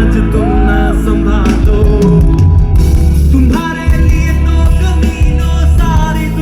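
Music with singing over a strong bass line.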